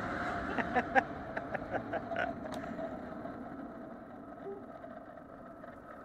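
Vacuum cleaner motor running with a steady whine. In the first few seconds it gives a run of sharp pops and cracks, then the sound gradually dies down.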